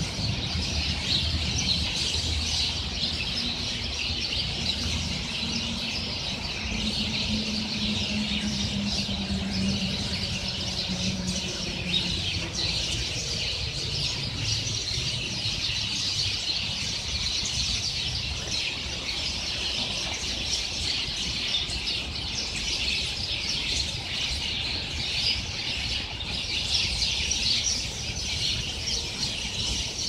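A large flock of birds roosting in a tree, all calling at once in a dense, unbroken chatter of chirps and squeals.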